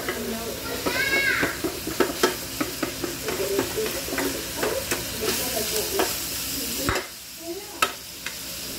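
Pork pieces sizzling in a frying pan over high heat while a wooden spatula stirs and scrapes against the pan with many small knocks. The stirring stops about seven seconds in, leaving a softer sizzle.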